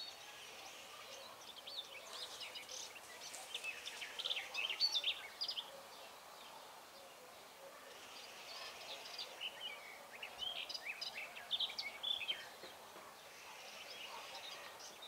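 Small songbirds chirping and twittering in quick clusters of short, high notes over a faint outdoor hiss, busiest about four to five seconds in and again around nine to twelve seconds.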